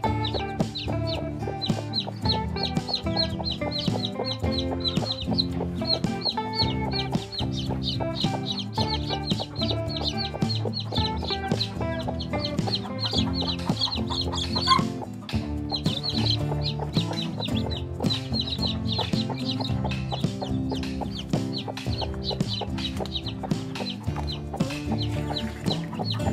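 Newly hatched chicks peeping rapidly and continuously, with a broody hen clucking and one louder call about halfway through, over background music.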